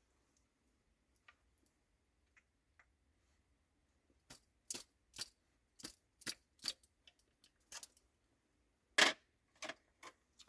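A series of sharp clicks and clinks of small hard objects: faint ticks at first, then about a dozen distinct clicks over six seconds, the loudest near the end.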